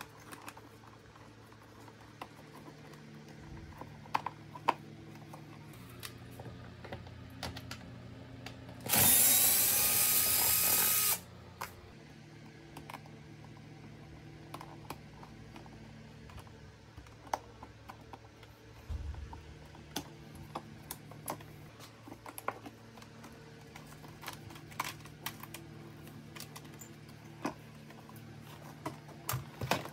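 Small clicks and light knocks of plastic parts and wires being handled, with a small electric power tool running for about two seconds about a third of the way in, rising in pitch as it starts.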